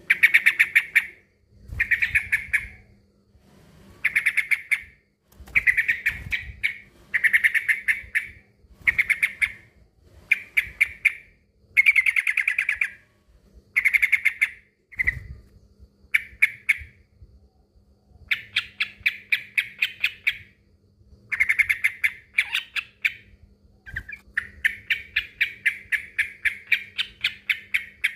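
Male yellow-vented bulbul (trucukan) singing a rival-challenge song: short phrases of fast chattering notes, each about a second long, repeated one after another, with longer unbroken runs in the second half. A faint steady hum lies underneath.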